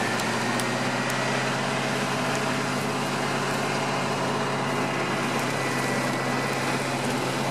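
Toyota Land Cruiser 100-series engine running at steady, even revs as the SUV crawls through deep swamp mud.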